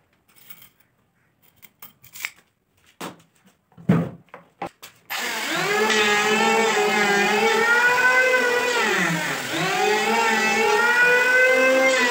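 A few scattered clicks and knocks, then about five seconds in a handheld electric planer starts abruptly and runs with a steady whine as it planes a wooden beam, its pitch dipping once briefly before recovering.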